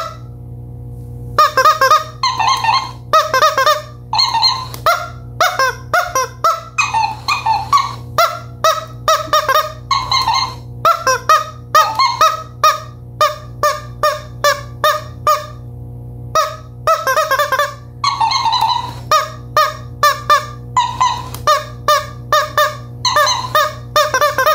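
Rubber chicken squeeze toy squawking again and again in quick short honks, mixed with the talking dancing cactus toy repeating the squawks back. The sound breaks off briefly about a second in and again about two thirds of the way through.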